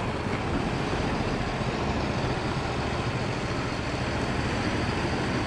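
Heavy goods truck's diesel engine running steadily at low revs as the truck creeps through at walking pace.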